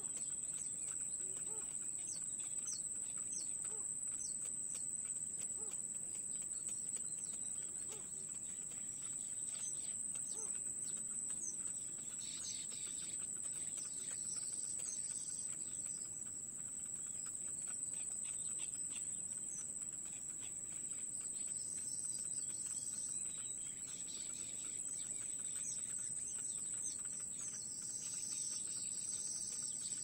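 Short high chirps and squeaks from bittern chicks begging at the nest, thicker in a few short spells, over a steady high-pitched whine.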